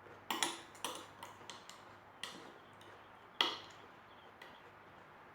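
Eating utensils clicking and scraping against a plate, several irregular light clinks with one louder clink about three and a half seconds in.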